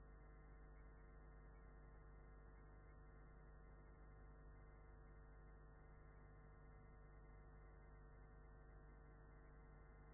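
Near silence: a faint, steady low hum with no other events.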